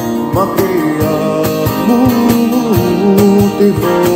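Street band playing live: a man sings into a microphone over strummed acoustic guitar and an electric guitar through a small Roland Cube amplifier, while a cajón keeps a steady beat.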